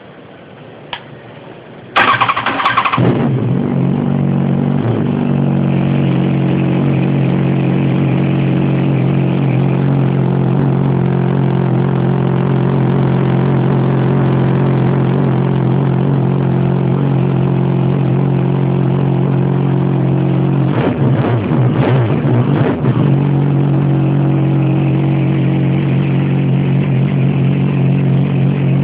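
Yamaha FZ1's inline-four engine breathing through an aftermarket MIVV oval carbon silencer, starting up about two seconds in with a short flare of revs, then settling into a steady idle. Near the three-quarter mark the throttle is blipped a few times in quick succession before it drops back to idle.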